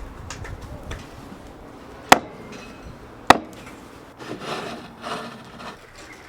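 Two sharp knocks about a second apart, as of hard wood or metal parts being struck or set down, followed by a stretch of scraping and rubbing.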